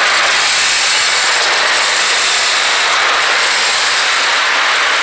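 A corn cleaning system running: a loud, steady rush of air through its corrugated flexible hose, with a machine hum underneath.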